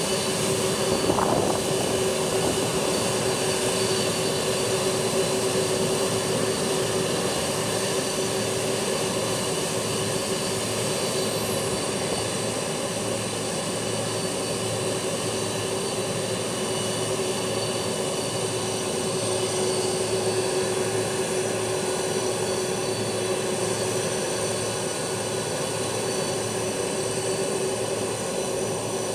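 Boeing 747-400's jet engines running steadily at low power after start-up: an even whine with a strong steady tone and several high steady tones over a rushing noise.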